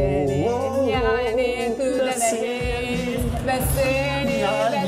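A woman and a man singing together over backing music.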